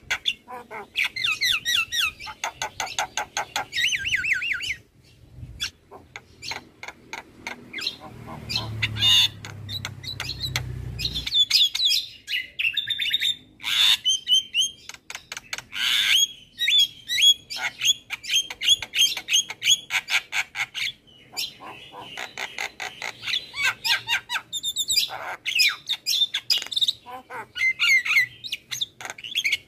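Javan myna singing: a fast, nearly unbroken run of harsh chattering squawks, clicks and rattling trills mixed with short whistled notes, with only brief pauses.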